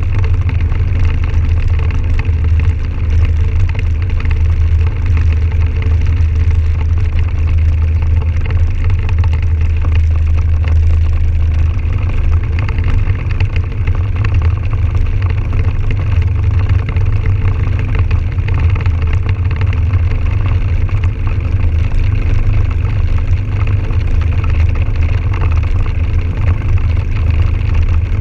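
Can-Am Outlander 1000 XT-P ATV's V-twin engine running steadily while riding at a constant cruising speed, heard from a camera on the machine with a heavy, fluctuating wind rumble on the microphone.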